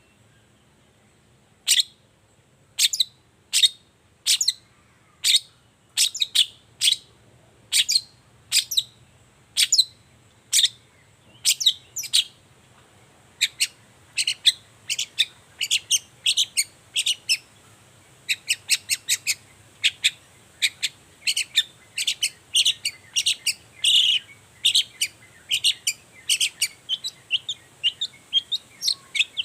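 Long-tailed shrike (cendet) calling with short, sharp, high notes. They come about once a second at first, then quicken into a busier, more varied run of notes from about halfway.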